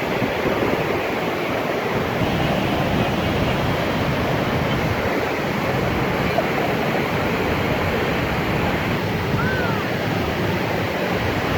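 Steady, loud rush of water, even and unbroken.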